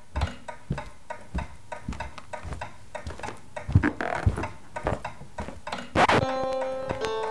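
Rapid, even ticking about three times a second, with heavier low thumps around four seconds in. A loud hit near six seconds gives way to background music with sustained, layered notes.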